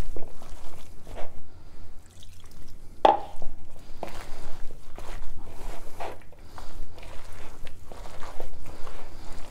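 A hand squeezing and kneading a thick gram-flour batter of chopped potato, onion and rocket leaves in a plastic bowl: wet squelching strokes, about one a second, the loudest about three seconds in.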